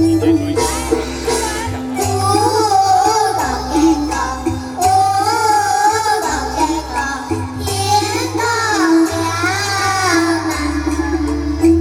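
A group of children singing a Hakka song together over instrumental accompaniment with a steady, pulsing bass line.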